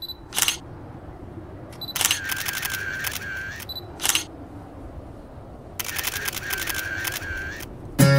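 Camera sound effects: single shutter clicks with short high beeps, and two rapid bursts of shutter clicks over a steady whine, each lasting about a second and a half. Acoustic guitar music comes in at the very end.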